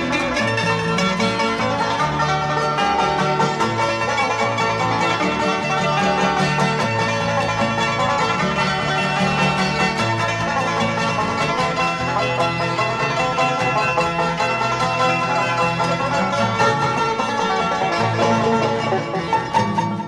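Bluegrass band playing an instrumental, a five-string banjo picking the lead over guitar, mandolin and upright bass, without singing.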